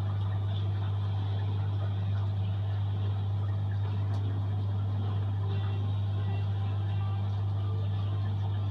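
A steady low hum that holds the same level throughout, with a faint hiss above it.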